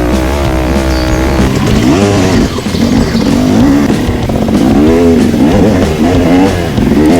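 Dirt bike engine running and revving, its pitch rising and falling repeatedly, with bigger revs about two seconds in, around five seconds and near the end.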